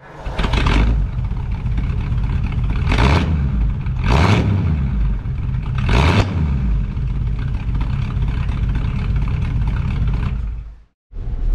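A 1939 Ford flathead V8 with twin single-barrel carburettors, heard from behind at the tailpipe, running at idle. It is revved up and back down in four short blips over the first six seconds, then settles back to a steady idle and cuts off suddenly near the end.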